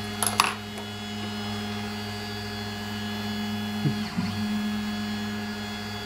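Steady electrical hum of an X-Carve CNC's stepper motors and drive electronics, powered and running. A few sharp clicks come about a quarter second in, and a brief low warble about four seconds in.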